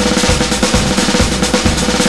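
Loud music with a fast, busy drum beat of snare and bass drum, over a steady held note.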